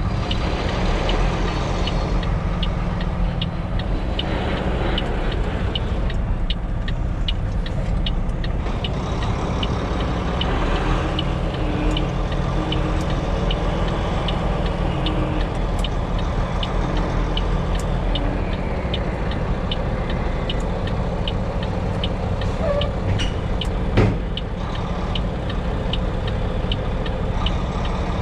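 Semi-truck's diesel engine running steadily in the cab, with a regular ticking about twice a second from the turn-signal flasher. A single sharp knock sounds a few seconds before the end.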